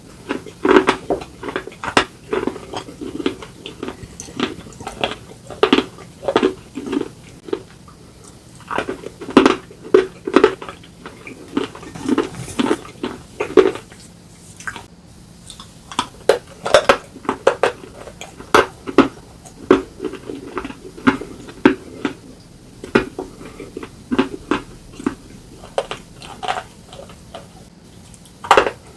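Close-miked biting and chewing of slate pencil and slate bar pieces: sharp, irregular crunches in quick runs, with short pauses between bites.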